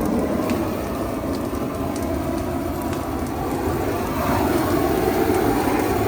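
Large brush-pile bonfire burning: a steady rumble with scattered crackles and pops.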